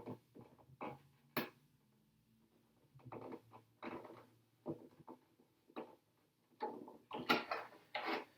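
Faint, irregular handling noises: short rustles, taps and clicks as a decal sheet is peeled and the stickers are pressed onto a plastic RC truck body, with one sharper click about a second and a half in.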